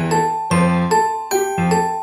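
Background music: a tinkling, bell-like melody of struck notes, about two a second.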